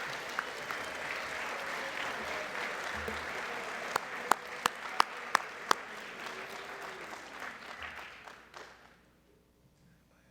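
Audience applauding steadily, with five or six sharp clicks standing out around the middle. The applause dies away about nine seconds in.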